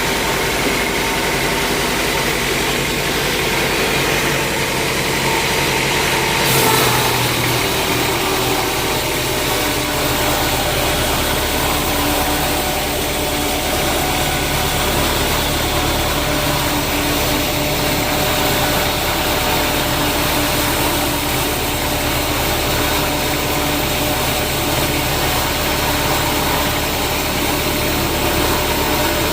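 Sawmill machinery engine running steadily, with a brief click and a change in its low hum about six and a half seconds in.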